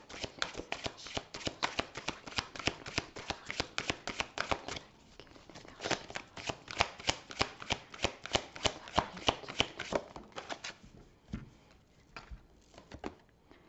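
A deck of oracle cards being shuffled by hand: a fast, continuous run of card flicks, with a short pause about five seconds in, thinning to a few separate card taps near the end.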